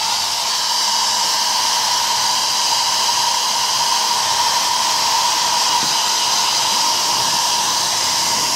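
Hair dryer switched on suddenly and running steadily: a constant motor whine over a loud rush of blown air.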